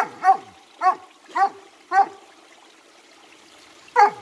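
A dog barking in a series: five barks about half a second apart, a pause of about two seconds, then another bark near the end.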